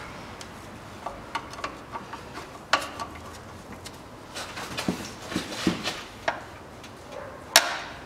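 Scattered clicks and knocks from a ratchet and cup-type cap wrench straining against an overtightened oil filter housing cap that will not turn, with two sharp metallic knocks, about three seconds in and near the end.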